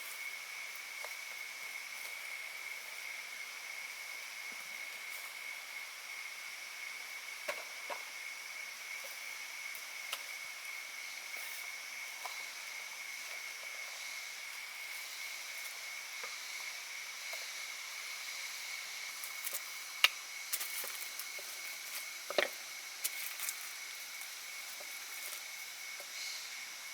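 Tropical forest ambience: an insect trills steadily at one high pitch over a faint hiss, with scattered small clicks and knocks. The sharpest click comes about twenty seconds in, and another follows a couple of seconds later.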